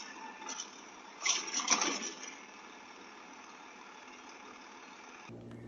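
Hand-held hairdryer running with a steady rushing whir, with a louder burst about a second and a half in. It cuts off suddenly near the end, leaving a low hum.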